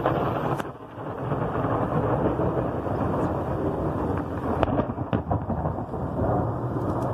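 Thunderstorm: heavy rain pouring with a steady low rumble of thunder underneath, dipping briefly just under a second in. A couple of sharp taps come past the middle.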